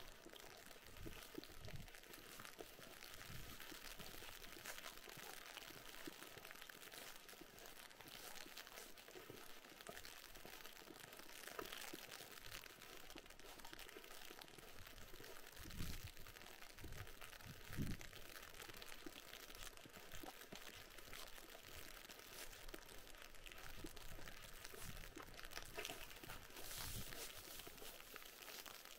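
Faint footsteps crunching on packed snow, with a fine, steady crackle of icy rain falling. A couple of louder dull thumps come just past halfway.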